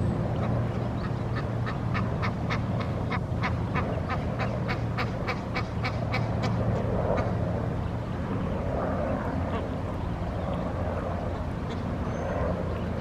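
Egyptian goose calling in a rapid series of short, sharp calls, about four a second, starting about a second in and stopping about halfway through, over a steady low hum.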